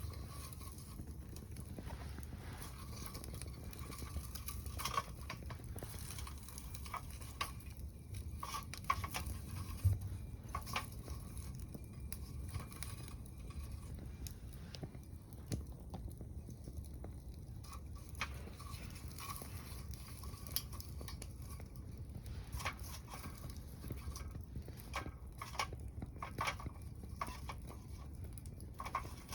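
Wood fire crackling in a small secondary-combustion camp wood stove: irregular sharp pops and snaps of burning kindling-sized wood over a steady low rumble.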